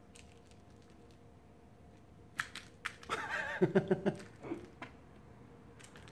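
A person laughing softly in a short run of pulsed chuckles about three seconds in, just after a few light taps.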